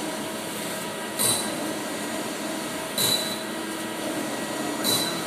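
CNC lathe running a part cycle: a steady machine hum with a short, high-pitched clink three times, about every two seconds.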